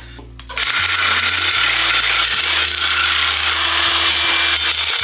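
Makita DJN161 18V cordless nibbler cutting through 1.2 mm galvanized steel sheet. It starts about half a second in, then runs with a steady, loud noise as its punch chews through the metal.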